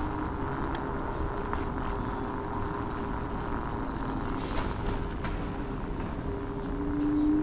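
Kaabo Wolf King GT electric scooter riding slowly: the dual hub motors whine steadily over tyre rumble on concrete. Near the end the whine grows louder and rises slightly in pitch.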